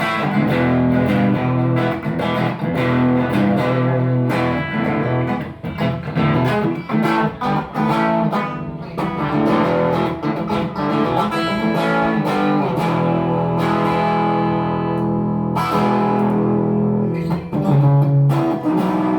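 Electric guitar played through a Gênova valve (tube) amplifier, mixing sustained chords and picked single notes.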